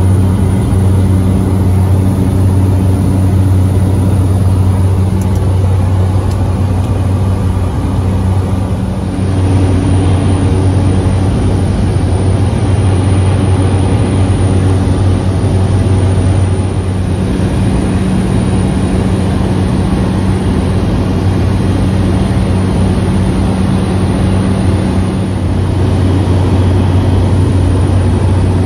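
Cessna 208 Caravan floatplane's turboprop engine and propeller running steadily at climb power, heard from inside the cabin as a loud, even drone.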